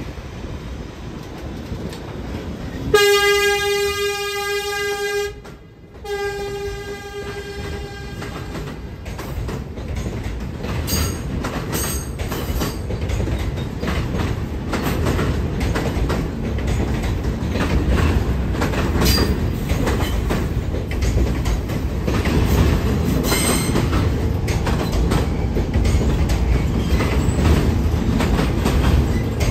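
A New York City subway train sounds its horn twice, a blast of about two seconds roughly three seconds in and a second, fading one right after. Then the train rumbles and clatters along the elevated steel track, growing louder, with a few brief squeals from the wheels.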